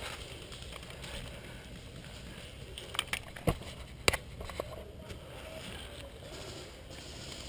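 A quick run of five or six sharp clicks and knocks about three to four and a half seconds in, over a steady low rumble.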